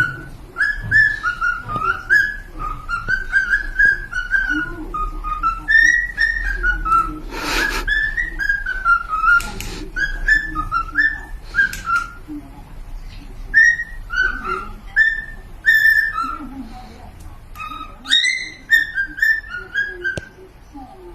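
Cockatiel whistling a long string of short, rising and falling notes, with two brief scratchy noises near the middle.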